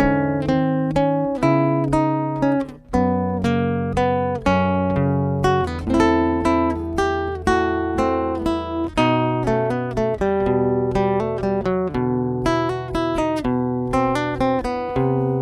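Solo acoustic guitar played fingerstyle: a melody of plucked notes over a ringing bass line, with a brief break about three seconds in.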